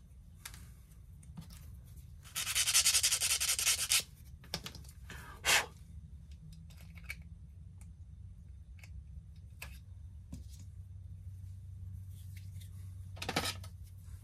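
Hand rubbing on a small part at a workbench: a rubbing scrape lasting under two seconds starts about two seconds in, a short stroke follows a little later and another comes near the end, with scattered light clicks and taps between them.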